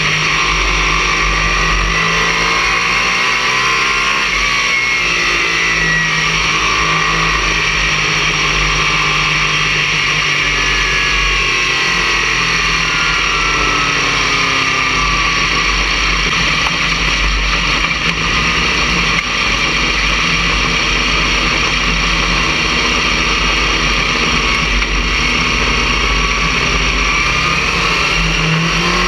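Stock car's racing engine at speed, heard from inside the car, loud throughout. Its pitch falls and rises slowly every several seconds as the throttle is lifted and reapplied around the oval.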